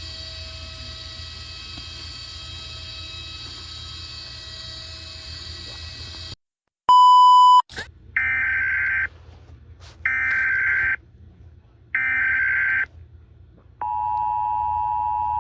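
A steady electronic drone with several held tones cuts off about six seconds in. After a brief gap comes a loud single beep lasting under a second, then three one-second bursts of warbling Emergency Alert System header data tones, a second apart. Near the end the two-tone EAS attention signal begins, announcing an alert message.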